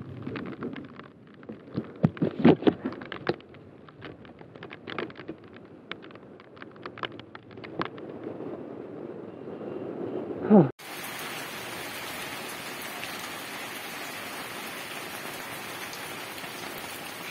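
Heavy rain pouring steadily onto a street and pavement. Before it, muffled knocks and scuffs of the camera being handled while walking, ending in a short loud sound that falls in pitch just before an abrupt cut to the rain.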